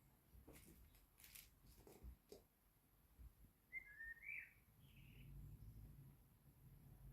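Near silence, with a few faint, short high chirps about four seconds in and some light taps and scuffs earlier on.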